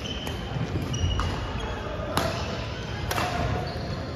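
Badminton rackets striking shuttlecocks in a reverberant gym hall: sharp pops roughly once a second, the loudest about two seconds in. Short squeaks of court shoes on the wooden floor come between the hits.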